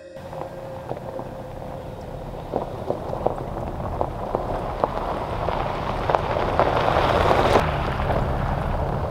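Ford Bronco Badlands driving by on a gravel trail: tyres crunching over gravel with scattered sharp pops of stones, growing louder as it approaches and passing close about seven and a half seconds in. After that the hiss drops away and the engine's low, steady drone is left as it pulls away.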